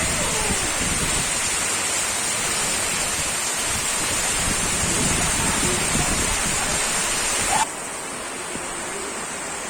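Heavy rain falling, a steady loud rushing hiss that drops suddenly to a quieter hiss near the end.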